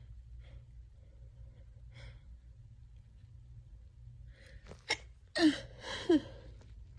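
A person with a cold breathing quietly, then drawing a gasping build-up breath with a sharp catch, followed by two loud sneezes in quick succession near the end.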